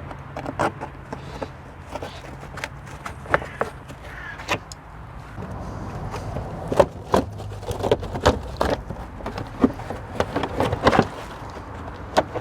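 Hand tools working a suspension bolt: irregular sharp metal clicks and knocks, over a steady low hum.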